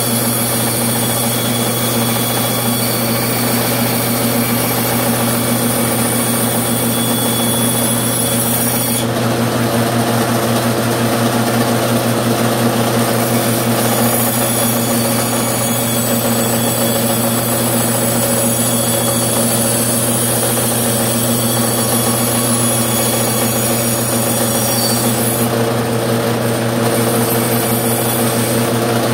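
Bandsaw motor running steadily while its blade cuts a curve through a block of scrap wood, with a constant hum under the cutting noise.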